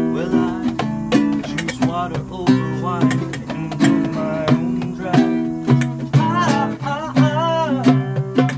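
Acoustic guitar strummed in steady chords, accompanying a man singing a song.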